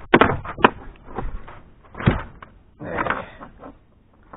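Clicks, knocks and rustling from a small pike being handled in a landing net in a boat: a quick run of sharp clicks at the start, a thump about two seconds in, and a scuffling rustle around three seconds.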